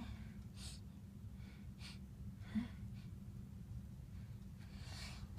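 A person's short, hitching breaths as a sneeze builds, with a brief catch in the voice midway and a longer drawn-in breath near the end.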